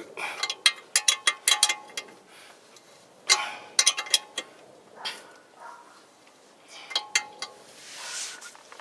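Steel wrench and metal suspension parts clinking and tapping together: a series of sharp metallic clinks with short ringing, in irregular clusters, as a tie rod end nut is worked with a hand wrench.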